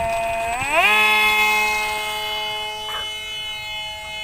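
Model airplane's motor and propeller whining as it throttles up: the pitch rises about three-quarters of a second in, then holds steady while the sound slowly fades.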